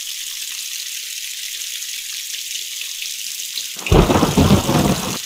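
Steady hiss of rain, with a loud rumbling thunderclap breaking in just under four seconds in and fading out after about a second and a half.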